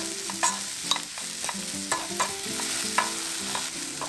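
Shiitake mushrooms and sliced onion sizzling in oil in a frying pan while being stir-fried. A spatula scrapes and knocks against the pan at irregular moments, about once or twice a second.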